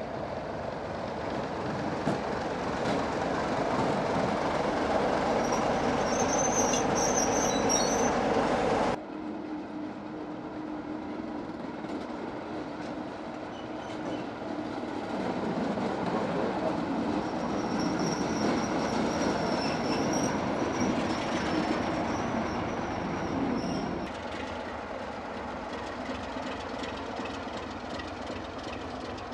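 British Rail Class 33 diesel-electric locomotives' Sulzer engines running as they move slowly along the station tracks, with high steady wheel squeals twice, once before and once after an abrupt drop in level about nine seconds in.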